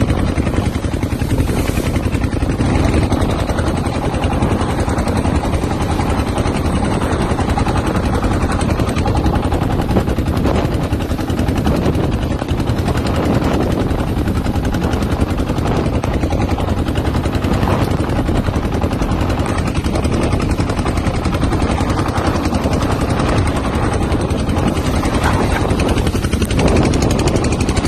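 Steady loud rumble of a small fishing boat under way in strong wind, engine noise and wind buffeting the microphone mixed together with a rapid flutter.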